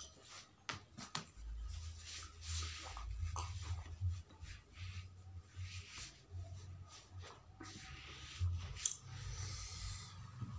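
Close-up eating sounds: chewing with wet mouth smacks and clicks, and fingers squishing rice and curry on a plate.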